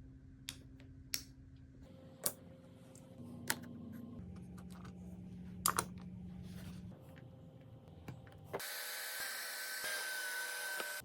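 Workshop handling sounds: sharp clicks and knocks of wooden parts and tools, a few seconds apart. Near the end a small power tool runs for about two and a half seconds with a steady high whir, then stops abruptly.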